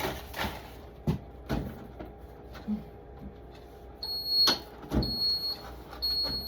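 Food containers knocking and thudding as they are put onto a refrigerator shelf, then a high electronic beep sounding three times, about once a second, near the end.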